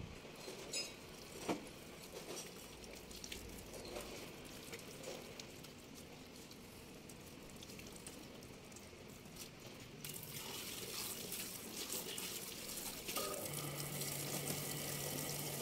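Tap water running and splashing onto a clear plastic car headlight lens as it is rinsed and rubbed by hand in a sink, with small knocks of the lens being handled. The splashing gets louder about ten seconds in, and a low steady hum joins near the end.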